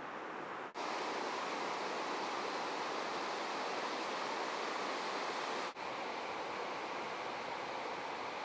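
Steady rushing wash of ocean surf. The sound drops out for an instant twice, under a second in and at about six seconds, where clips are cut together.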